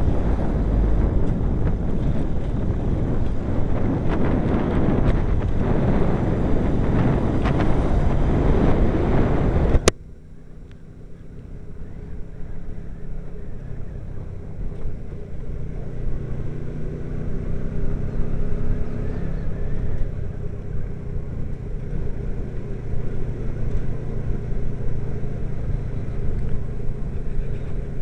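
Wind rushing over the camera microphone while riding along a road. About ten seconds in, a click cuts the loud roar off suddenly, leaving a quieter steady rumble of road noise.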